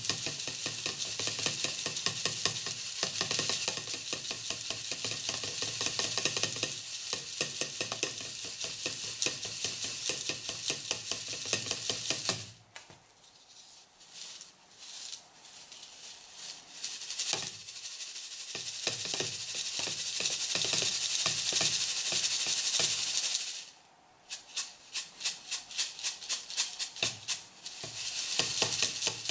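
Small pieces of activated charcoal rattling in a stacked sieve with a wire grid as it is shaken to knock out the dust and smaller particles. A dense, continuous rattle for about twelve seconds, a pause with a few scattered knocks, more rattling, then rhythmic shaking of about three to four strokes a second near the end.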